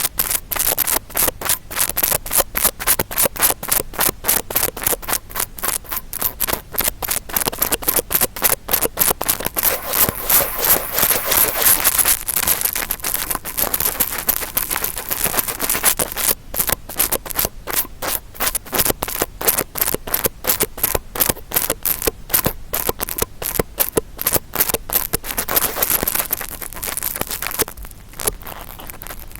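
Interdental brush scraped rapidly against a microphone to make ear-cleaning ASMR sounds: a fast, continuous run of scratchy rubbing strokes, about four a second, easing off briefly near the end.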